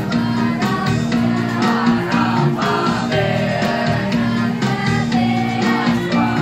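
A mixed school choir of boys and girls singing a song together, with instrumental accompaniment holding steady low notes, amplified through microphones and loudspeakers.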